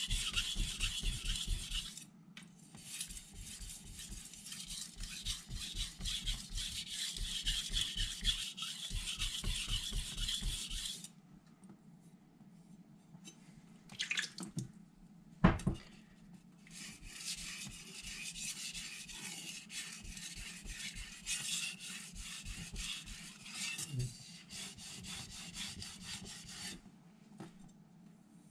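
Carbon steel knife blade stroked back and forth on a 1200-grit vitrified whetstone: a rapid, rhythmic scraping of steel on stone. The strokes pause about 11 seconds in, with one sharp thump a few seconds later, and resume for another ten seconds or so.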